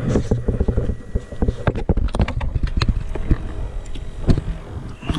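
Clattering and knocking of gear being handled at a pier cart and its live-bait tank, many short knocks in quick succession over a steady low hum.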